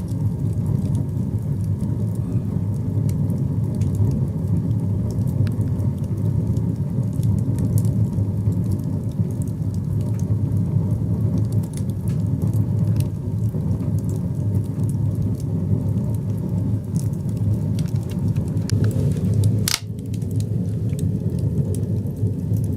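Firewood burning in a small metal stove: a steady low rumble of the fire with scattered crackles, and one sharp pop about twenty seconds in.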